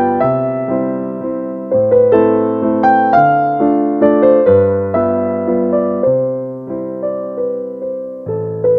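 Background piano music: a slow melody of struck notes over low bass notes that change every second or two, each note fading away after it is played.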